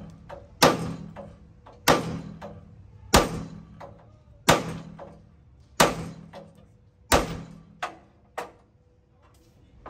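Hammer blows on a steel truck chassis, driving rivets: six heavy, evenly paced strikes about a second and a quarter apart, each ringing briefly, then two lighter taps near the end.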